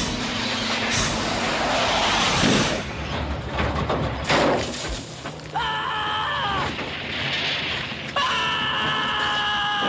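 Film sound mix of the DeLorean time machine hitting 88 mph: a rushing noise with sharp crackling bangs, then a young man screaming in fright, a short yell about five and a half seconds in and a longer one starting near the end.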